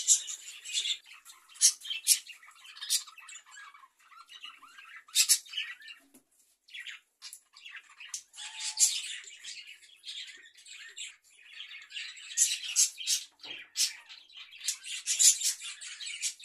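A flock of budgerigars chattering and chirping, a dense busy warble broken by many short, sharp high calls.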